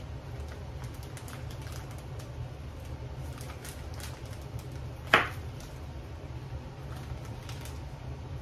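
Small handling noises of kitchen prep: a plastic zip bag crinkling and a spoon working pepper pieces on a plastic cutting board, with one sharp click about five seconds in, over a steady low hum.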